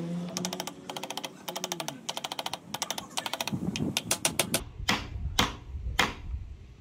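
A hammer strikes a wooden block three times, about half a second apart, driving wooden wedges into the top of an axe handle seated in the head's eye. Before the blows, fast even ticking runs under music that fades out.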